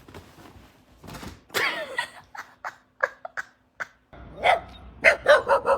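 A dog barking: short, sharp barks, with a quick run of four or five near the end.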